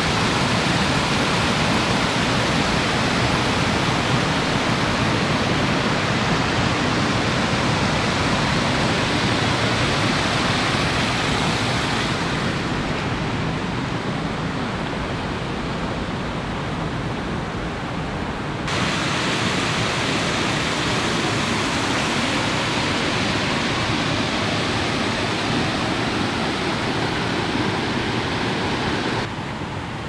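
Steady rush of water from shallow cascades and a fast stream running over limestone. It changes abruptly in level and tone three times: about twelve seconds in, around nineteen seconds in, and just before the end.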